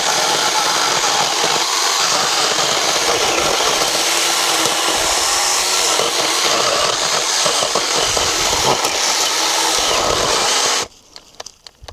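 Cordless power saw cutting through firewood, running steadily, then cutting out suddenly about a second before the end: the battery has died, as the user suspects.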